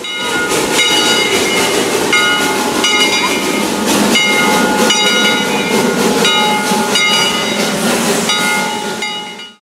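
Steam locomotive running: rhythmic chuffing over steam hiss, with steady high tones riding on top. It cuts off suddenly near the end.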